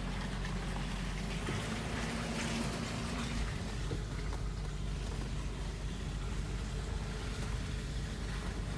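BMW X5 E53 running with a steady engine drone and a few faint irregular knocks: the knocking fault the owner is recording.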